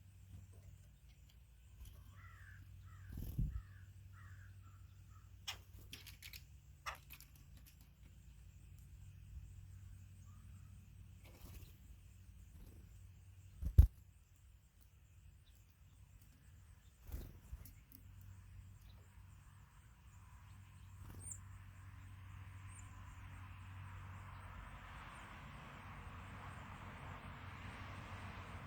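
Outdoor bird-feeder ambience: a short run of harsh bird calls, then scattered sharp knocks, the loudest a little before halfway. A steady rushing noise builds over the last few seconds.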